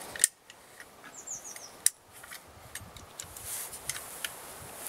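Sharp clicks from an MX-80 pistol crossbow's mechanism as it is handled: one loud click just after the start and another about two seconds in, with lighter ticks between. A bird gives a quick series of high falling chirps about a second in.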